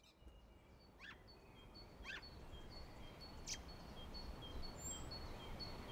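Faint outdoor ambience fading in from silence, with a small songbird repeating a short high two-note call about twice a second and a few sharper chirps.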